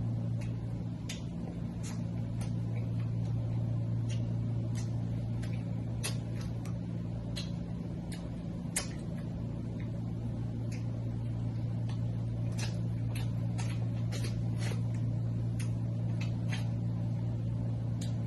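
Eating a seafood boil: irregular sharp clicks and cracks from snow crab shells and chewing, over a steady low hum.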